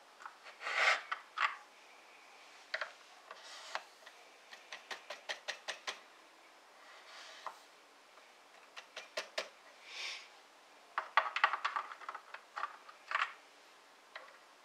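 Brass .308 cases clicking and being tapped against a bench-mounted powder measure as it is worked by hand to charge them, in runs of quick light clicks. Between the clicks come several short soft hisses of powder pouring into a case.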